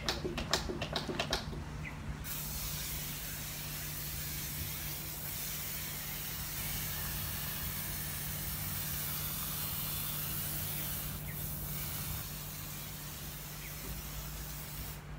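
Hand-pump pressure foam sprayer: a few last pump strokes, then from about two seconds in a steady hiss of foam spraying onto a car windscreen, easing a little later on and cutting off suddenly near the end.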